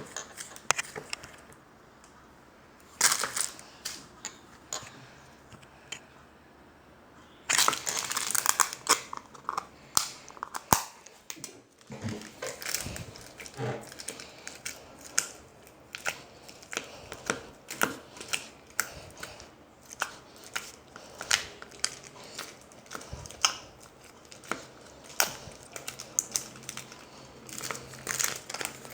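Slime being squeezed and pressed by hand, giving bursts of crackling and sharp clicks, then a run of separate clicks about once or twice a second.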